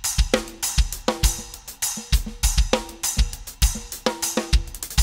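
Drum kit played in a steady groove, with kick drum about twice a second, ringing snare strokes and a 10-inch Meinl Byzance dark splash cymbal struck over them.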